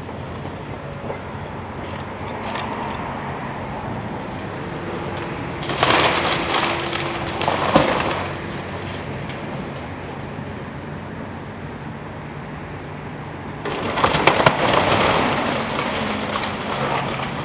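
A demolition excavator's diesel engine running steadily while the machine tears into the wooden building's roof and walls. There are two bouts of cracking, splintering timber and crashing debris: one about six seconds in, and a longer one from about fourteen seconds.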